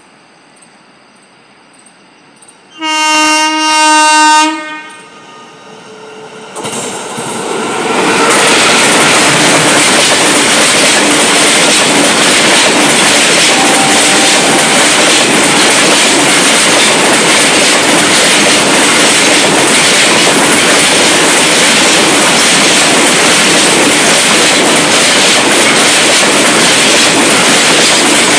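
A train horn sounds one long blast about three seconds in. Then a freight train of tank wagons passes at speed: a loud, steady rush of wheels on rails with a rapid clickety-clack that runs on to the end.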